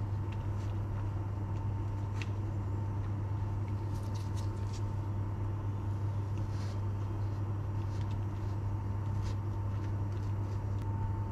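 Steady low hum with a faint thin whine above it, under a few light clicks and taps from a plastic spatula pressing down through a sponge cake as it is cut into wedges.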